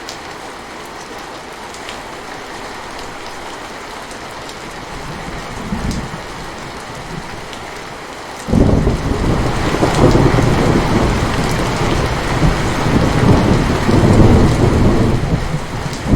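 Steady rain falling, with thunder breaking in suddenly about halfway through: a loud, deep rumble that rolls on, swelling and easing.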